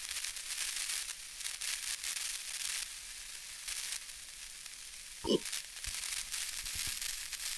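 Steady crackling static hiss, like an old record's surface noise, with one short squeak about five seconds in and a few faint low knocks after it.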